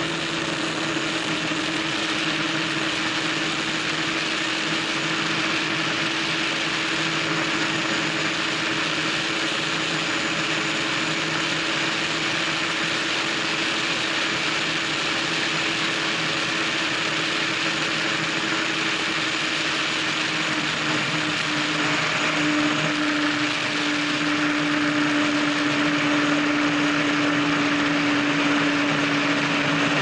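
DCB high-performance powerboat running flat out at over 100 mph: a steady engine drone under a loud rush of wind and water. About two-thirds of the way through, the engine note drops slightly as the speed eases back from around 123 mph.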